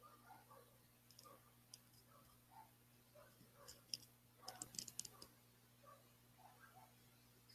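Near silence with a faint low hum and a faint murmur of voices; a quick run of faint sharp clicks comes about four to five seconds in, with a few single clicks before it.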